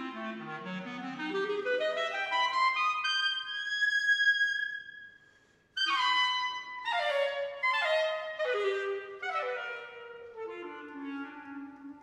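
Solo clarinet climbing in a run from its low register to a long held high note that fades away. After a brief pause it comes back in loudly with a string of quick falling phrases that grow softer.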